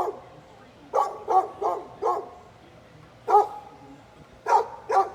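A dog barking in short, sharp barks: a quick run of four, a single bark, then two more near the end.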